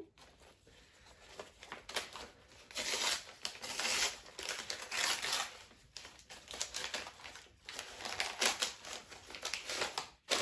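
Brown kraft paper wrapping crinkling and rustling in irregular bursts as it is pulled away from around a plant pot.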